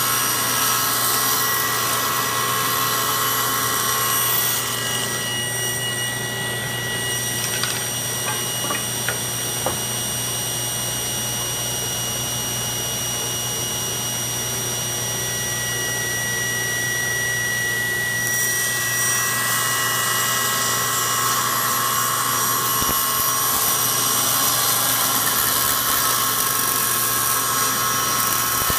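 Table saw running steadily while thin ebony strips are ripped into stringing. The blade cuts for the first four seconds or so, runs free through the middle with a few light clicks of wood being handled, and cuts again from a little past halfway on.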